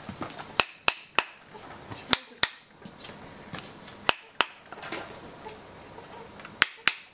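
Sharp wooden knocks in short groups of two or three, about four groups in all. A wooden mallet is striking a Japanese chisel (nomi) to knock its wooden handle (tsuka) loose from the blade's tang.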